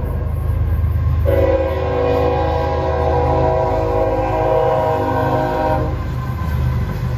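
Train horn sounding one long multi-tone blast from about a second in until near six seconds, over a steady low rumble from the passing train.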